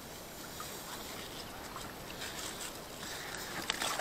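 Shallow water sloshing and splashing, with a few sharper splashes about three and a half seconds in.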